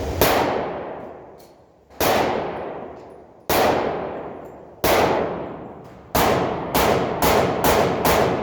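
Glock pistol in 10mm Auto firing nine shots, each followed by a long echo. The first five are spaced about a second and a half apart, then the last four come quickly at about two a second.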